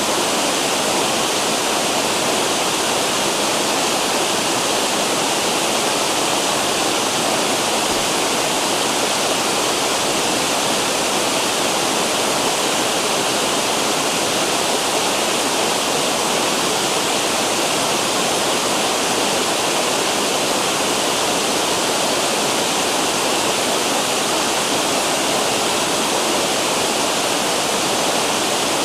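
River water cascading over falls, a loud, steady rushing roar with no change in strength.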